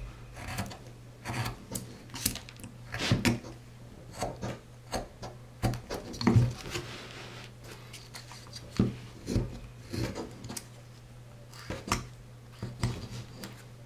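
Carving knife slicing shavings off a small wooden figure: a short scrape with each cut, over a dozen strokes at an uneven pace, over a steady low hum.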